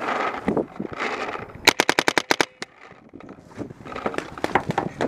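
Paintball marker firing a rapid string of about ten shots in under a second, with footsteps and clothing rustle on dirt before and after.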